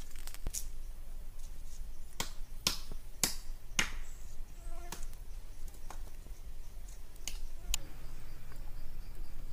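A string of sharp clicks and snaps at uneven intervals, most of them in the first four seconds, over a faint low background.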